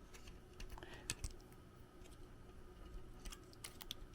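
Faint, scattered clicks and taps of a Radeon RX 580 graphics card being handled, a little busier about a second in and again near the end, over a faint steady hum.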